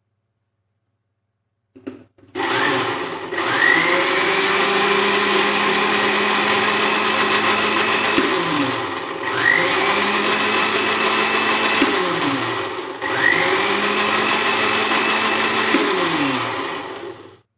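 Electric countertop blender puréeing chopped strawberries and sugar: it is switched on about two seconds in, runs in three bursts, its motor winding down briefly and whining back up twice between them, and stops near the end.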